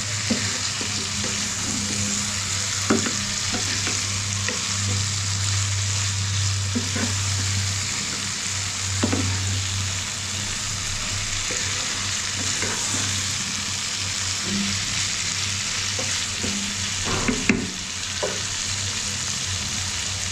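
Beef liver sizzling in oil and spice paste in a pan as it is stir-fried, with scattered clicks and scrapes of the spatula against the pan. A low steady hum runs underneath.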